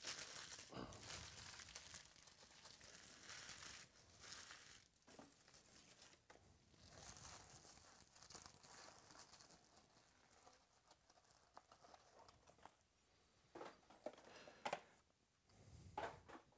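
Quiet rustling and crinkling of card boxes and packaging being handled, with a few sharper knocks and rustles near the end as a box is set down.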